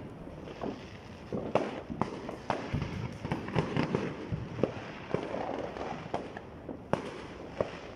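Fireworks going off, irregular sharp cracks and pops about one or two a second, over a steady background hiss.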